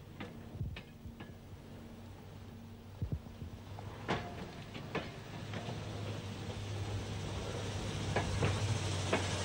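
West Clare diesel rail car running in along the track, a low engine hum growing louder over the second half, with scattered sharp clicks and knocks.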